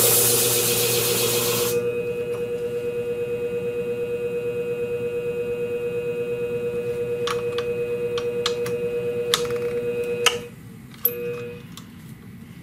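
Scimech flathone shear-sharpening machine: for the first couple of seconds a shear blade grinds against the spinning flat hone with a harsh hiss, then the motor runs on alone with a steady hum, a few light clicks of the clamp jig, and the motor is switched off about ten seconds in, the hum cutting off and a brief tone and click following as it stops.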